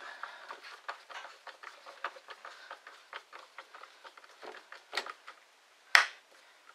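Hand screwdriver turning screws into the plastic housing of a Ridgid X2 drill: a run of small irregular clicks and scrapes, with two sharper clicks about five and six seconds in.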